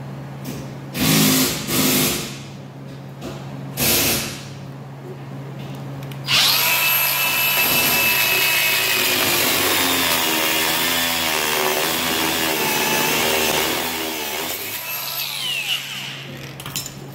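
Cordless Milwaukee M18 compact cut-off tool cutting through a steel bar with a high whine. Two short bursts come first, then about eight seconds of steady cutting that winds down with a falling whine. A steady low hum runs underneath.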